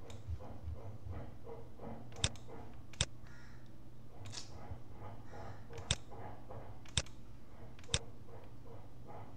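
Five sharp single clicks of a computer mouse, spaced about a second apart, over a low steady hum.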